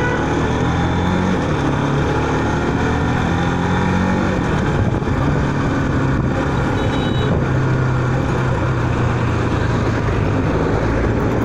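Kawasaki Bajaj Rouser 200NS motorcycle's single-cylinder engine running steadily while riding at city speed, with wind and road noise over the microphone; the engine pitch dips and rises once about four seconds in.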